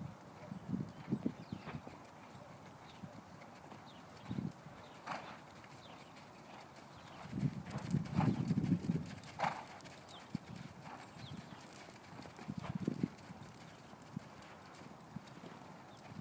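Hoofbeats of an American Paint Horse mare, coming in irregular groups of low thuds, heaviest about halfway through.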